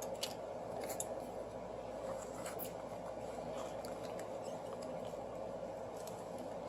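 A few faint clicks and light scrapes of hand tools and a card working at a phone's broken glass, over a steady background hum.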